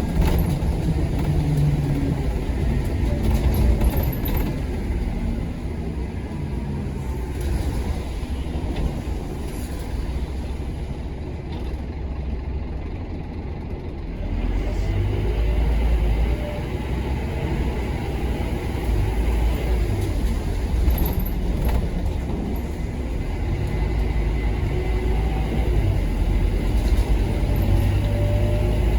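Scania K230UB Omnilink bus's five-cylinder diesel engine and ZF Ecomat automatic gearbox on the move, the engine note stepping up and down with the gear changes. It eases off about six seconds in, then pulls harder again from about halfway.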